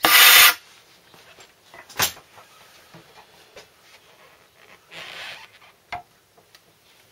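Plaster mould being pried and lifted off a fresh plaster casting: a loud half-second rush of noise at the start, a sharp knock about two seconds in, a softer rush around five seconds and a small click just after, with light scraping of plaster on plaster between.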